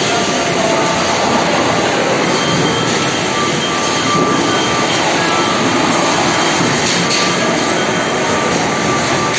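Packaging-line machinery running in a factory: a steady, loud mechanical noise with a few faint clicks.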